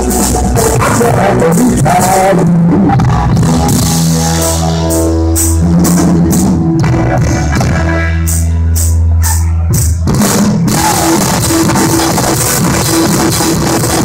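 A live blues-rock band of cigar box guitar, electric bass and drum kit playing without vocals. Midway through, the band holds long low notes under scattered drum and cymbal hits, then the full beat kicks back in near the end.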